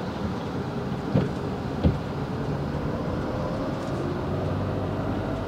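Motorhome engine and road noise heard from inside the cab while driving, a steady low rumble. Two short knocks come a little over a second in and just before two seconds.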